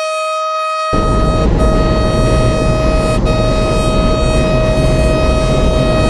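Siren sounding one steady, unwavering tone rich in overtones, with two brief dropouts. A rough low rumbling noise joins it about a second in.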